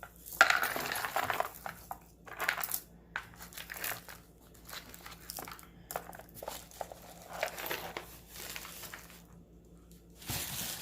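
Jewelry and its packaging being handled: crinkling rustles with small metallic clinks, in irregular bursts, loudest about half a second in and again near the end.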